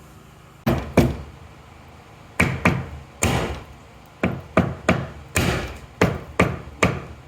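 Hammer blows knocking out a drill-perforated section of a shed door to open a hole for a fan, about a dozen sharp strikes in irregular groups of two or three.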